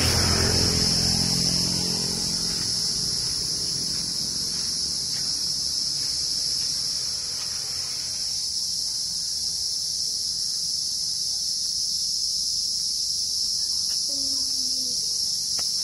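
Steady, high-pitched chorus of insects, with a low rumble fading away over the first couple of seconds.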